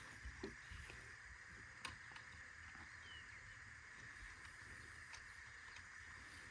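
Near silence: faint steady background hiss with a few light clicks, one about half a second in and one about two seconds in.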